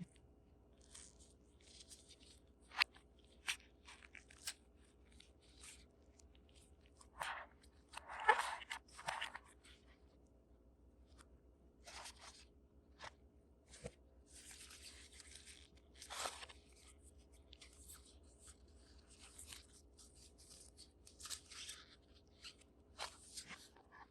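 Hands handling a smartphone's retail packaging: plastic and cardboard crinkling and rustling in irregular bursts, with scattered light clicks and taps.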